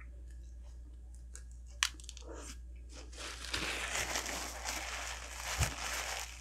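Faint clicks and a sharp tick, then from about three seconds in a dense crinkling and rustling of paper food packaging being handled close to the microphone, with a soft thump near the end.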